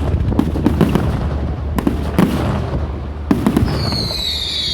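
Fireworks bursting and crackling in rapid, irregular bangs. Near the end a high whistle starts and slowly falls in pitch.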